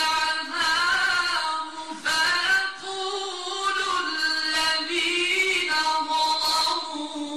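A man reciting the Quran in the melodic mujawwad (tajwid) style, drawing out long, ornamented held notes in one voice, with a short breath pause about two seconds in.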